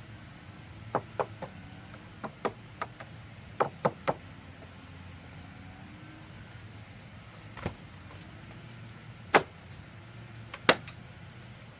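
A series of sharp, irregular knocks and taps, hard objects striking one another, with clusters in the first few seconds and two louder knocks near the end.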